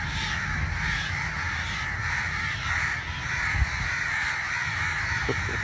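House crow cawing while held in a person's hands.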